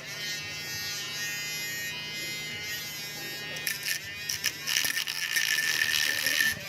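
Small handheld electric power tool cutting or sanding carbon fiber in spurts, with a high-pitched motor whine. It stops right at the start, runs briefly a little before the middle, then runs steadily again until near the end.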